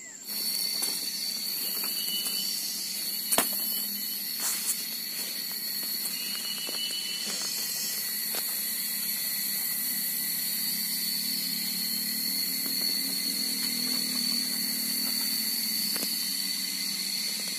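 Steady, high-pitched insect drone with a hissing shimmer above it, typical of a tropical forest insect chorus. A few sharp snaps or knocks come about three to five seconds in.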